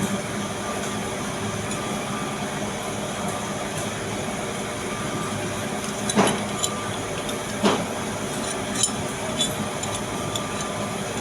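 A few sharp metallic clinks, two about six and seven and a half seconds in and a fainter one near nine seconds, over a steady background hum.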